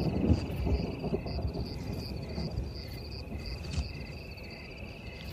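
Night insects such as crickets chirping steadily, one trilling high and another giving short even chirps about twice a second, over a low rumble that fades during the first couple of seconds.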